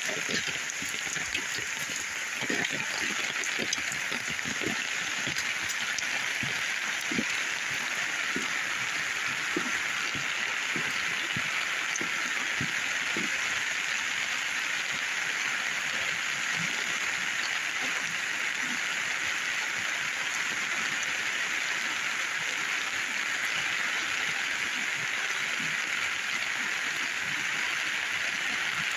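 Steady rain falling, an even hiss, with scattered close drop taps, most of them in the first half.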